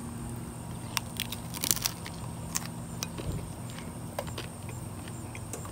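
Crunching of a hard corn taco shell being bitten and chewed: a cluster of sharp cracks about a second and a half in, then scattered single crunches.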